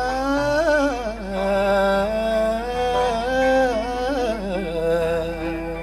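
A man singing a Chaoui Berber folk song to oud accompaniment, drawing out long notes that waver and slide between pitches without clear words.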